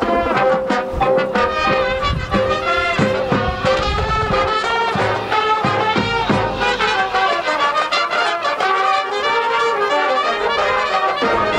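Marching band playing, the brass section carrying a melody over drum hits.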